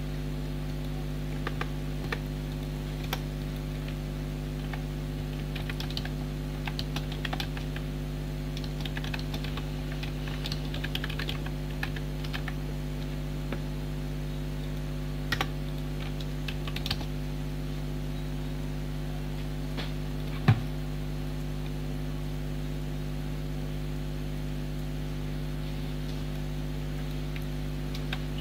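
Computer keyboard keys clicking in scattered, irregular clusters over a steady low electrical hum, with one louder knock about twenty seconds in.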